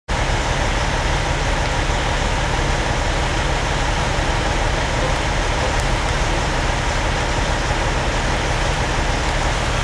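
A neighbouring semi truck's diesel engine idling: a steady, unchanging low rumble.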